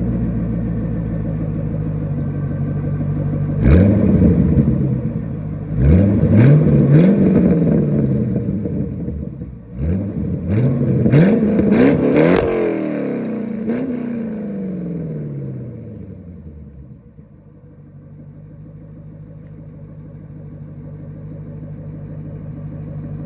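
1994 Chevrolet Corvette's LT1 5.7-litre V8 with the mufflers deleted (stock tips), idling, then revved sharply about seven times from about four seconds in, each rev rising quickly and dropping back. After the last and highest rev the revs fall away slowly and the engine settles back to a steady idle.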